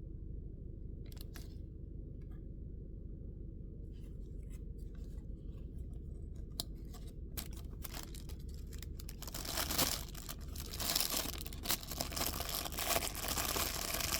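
Knife packaging being handled and unwrapped: a few small clicks and scrapes, then from about nine seconds in, continuous loud rustling and tearing of the wrapping. A steady low hum runs underneath.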